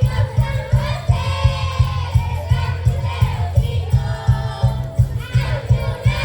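A Christmas carol sung by a group of voices over a recorded backing track with a steady, driving low beat.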